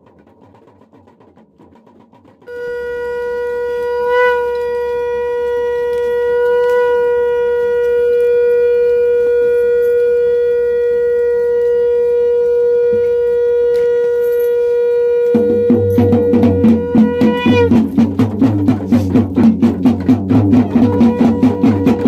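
A conch shell (shankh) blown in one long steady note of about fifteen seconds, starting a couple of seconds in. Shortly before the note ends, fast rhythmic drumming starts and carries on to the end.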